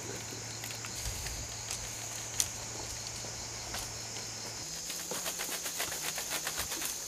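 Jungle insects droning, one steady high-pitched tone, with a few scattered clicks and a fast run of ticks in the last couple of seconds.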